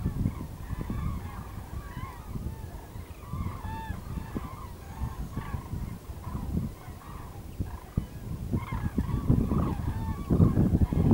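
A large flock of common cranes calling in flight overhead: many short trumpeting calls overlapping throughout. A low rumble underneath grows louder near the end.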